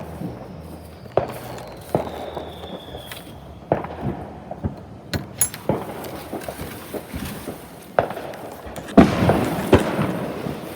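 Fireworks popping and banging at uneven intervals, loudest in a cluster near the end, with a thin falling whistle over the first few seconds.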